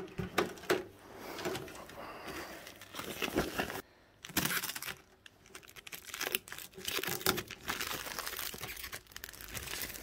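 Clear plastic protective film and tape being peeled off a new microwave's door, crinkling and tearing in irregular bursts, with short pauses about four and five seconds in.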